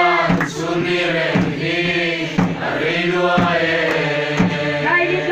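A congregation singing a Mizo lengkhawm hymn together in drawn-out, chant-like phrases, over a steady drum beat of about one stroke a second.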